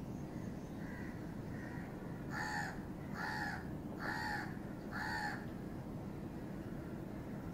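Crow cawing: four caws in a row, a little under a second apart, starting about two seconds in, after two fainter calls.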